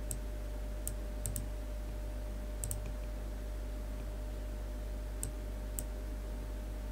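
Computer mouse buttons clicking: about eight short, sharp clicks at irregular intervals, some in quick pairs, as vector nodes are selected and dragged. A steady low electrical hum runs underneath.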